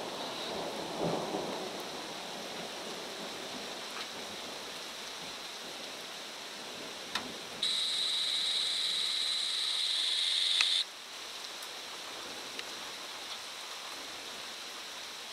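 Steady rain falling in a thunderstorm, with a short rumble of thunder about a second in. About halfway through, a high-pitched buzzing tone comes in for about three seconds and cuts off suddenly.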